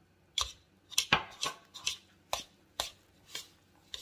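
A utensil knocking against a mixing bowl while stirring milk into flour and shortening for dumpling dough: sharp clicks about twice a second, a few with a dull thud.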